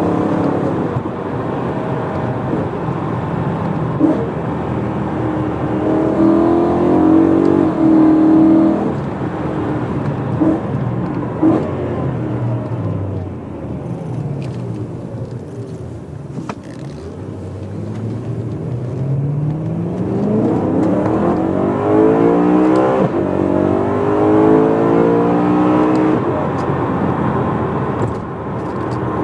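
BMW E92 M3's 4.0-litre V8 with a primary decat X-pipe and stock back box, heard from inside the cabin while driving. The engine note is high early on, falls away steadily to low revs about halfway through, then rises again as the car pulls up through the revs.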